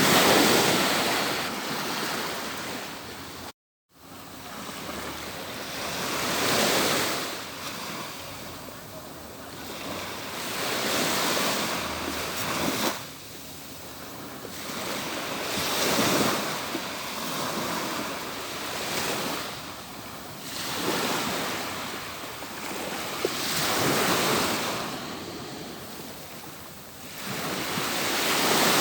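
Atlantic surf breaking on a beach: waves rolling in one after another, each swelling up and washing back about every four to five seconds. A brief cut to silence about three and a half seconds in.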